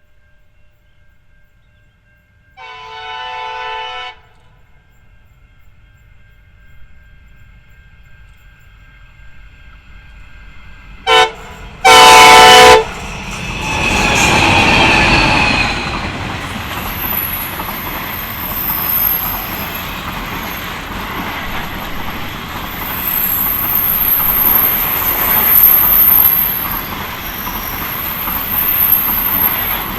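Train locomotive horn sounding a chord-like blast of about a second and a half. About eleven seconds in, it gives a short toot followed by a louder blast. The train then runs past with a steady rumble of wheels on rail and a thin, high wheel squeal.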